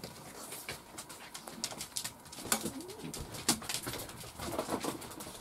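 Soft low cooing calls, with scattered light taps and clicks as cats move about on a cloth-covered table.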